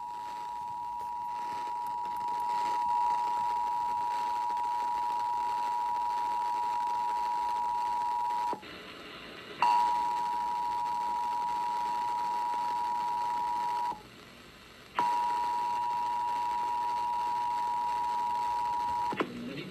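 Emergency Alert System attention signal broadcast over FM radio: the steady two-tone alarm that opens a Required Monthly Test. It is broken twice by gaps of about a second and stops shortly before the end.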